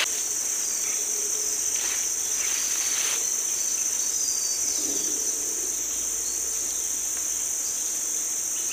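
Steady high-pitched drone of insects in the riverside vegetation, with a little faint rustling about two to three seconds in.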